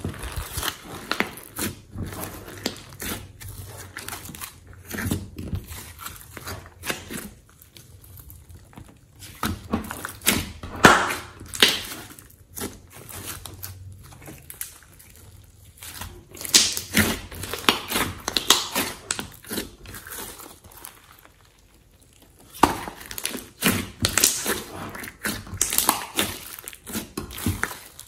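Glossy slime squeezed, kneaded and stretched by hand in a glass dish, giving many sharp, irregular clicks and pops as air pockets are squished. There is a lull of a few seconds about three quarters of the way through.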